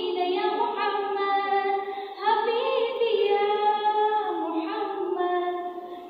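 A girl singing a naat unaccompanied into a microphone, holding long notes with gliding turns of pitch. She pauses for breath briefly about two seconds in and again near the end.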